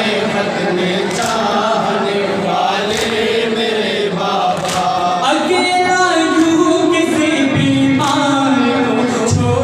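A chorus of men chanting an Urdu noha (Shia lament) in unison through a microphone and loudspeakers, the melody held and wavering. Sharp slaps of matam, hands striking the chest, mark the beat every second or two.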